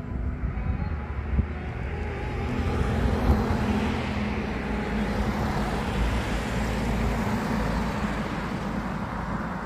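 A motor vehicle passing: a low rumble with rushing noise that builds to its loudest around the middle and slowly fades.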